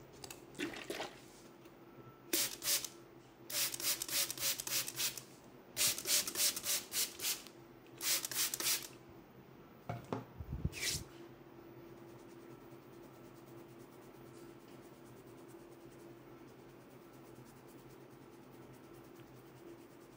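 Hand trigger spray bottle misting water onto the hair in quick squirts: a pair about two seconds in, then three fast runs of several squirts each and a last single squirt near eleven seconds. A soft low thump comes just before the last squirt, and afterwards only a faint steady hum.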